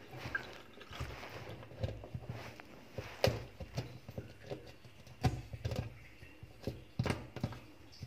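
Fingers scrubbing the wet plastic floor of a washing-machine tub around the pulsator shaft: rubbing noises with irregular small knocks against the plastic.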